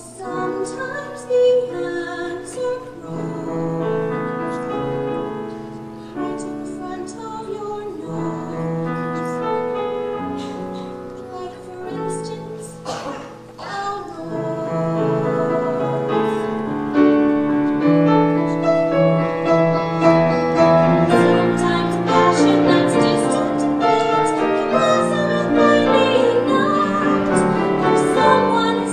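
Music: piano with a woman singing, growing fuller and louder about halfway through.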